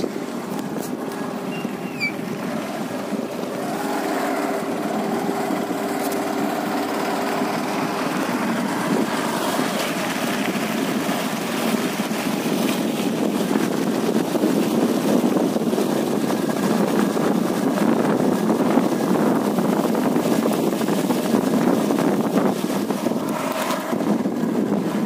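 A motor engine running steadily under a heavy rushing noise, with a steady hum that fades out about a third of the way through while the rushing grows a little louder.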